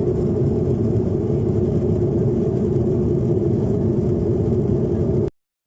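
Steady low drone of an airliner cabin: engine and airflow noise heard from inside the plane. It cuts out abruptly for a moment just before the end.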